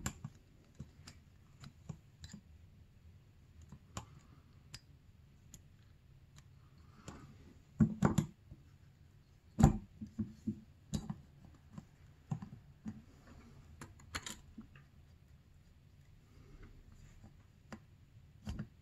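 Light clicks and small metal knocks as a snowmobile two-stroke engine's cylinder is worked down by hand over the piston, the piston rings pinched in with the fingers. A cluster of louder knocks comes about eight seconds in and another near ten seconds.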